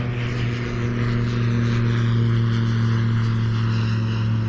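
Light propeller airplane flying by, its engine running with a steady low even tone.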